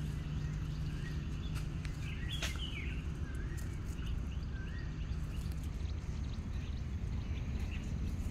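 A steady low rumble of outdoor background noise, with a few short bird chirps over it and one sharp click about two and a half seconds in.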